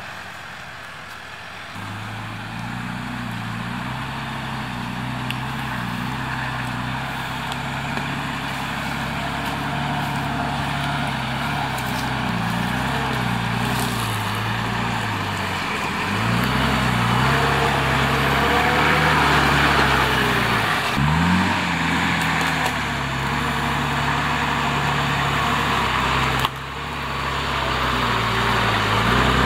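Four-wheel-drive vehicle's engine driving on an offroad track, its revs rising and falling with the load, with a quick dip and rise in revs about two-thirds through and a sudden knock near the end.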